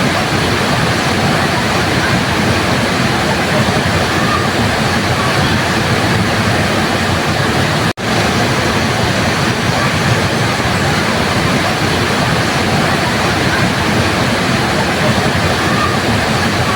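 Waterfall: a steady, loud rush of falling water. About halfway through it cuts out for an instant and swells straight back, like an edit or loop join.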